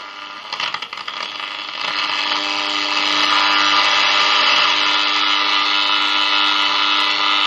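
1950 HMV C13C valve radio on the shortwave band, tuned to no station, giving out loud static hiss with steady hum tones through its speaker. It crackles unevenly for the first couple of seconds, then grows louder and settles into a steady hiss.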